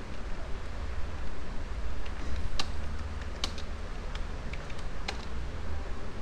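Computer keyboard typing: a few separate keystroke clicks, spaced out and mostly in the middle of the stretch, over a steady low hum.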